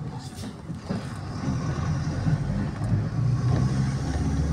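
Bus engine heard from inside the passenger cabin, a low rumble that grows louder about a second and a half in as the bus picks up speed.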